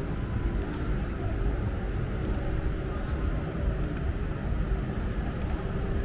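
Outdoor ambience on a beach walk: a steady low rumble, with faint voices in the background.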